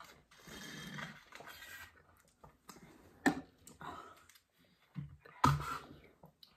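Sucking and slurping through small straws from plastic juice barrels, with sharp clicks and knocks of the plastic bottles being handled and set down on the table, the loudest about three and five and a half seconds in.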